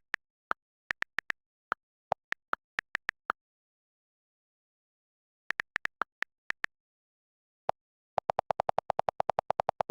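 Short electronic beeps, clipped and separated by dead silence: a scattered, irregular string of high beeps, a pause, a few more, then a fast, even run of about ten lower beeps a second near the end, like a phone's tones while a ringtone is entered and played.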